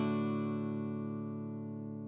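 Background music: a guitar chord left ringing and slowly fading.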